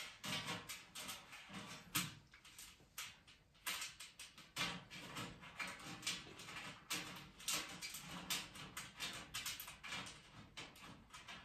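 Irregular small clicks, scrapes and rustles of hands working the parts of a black metal mesh trolley frame during assembly.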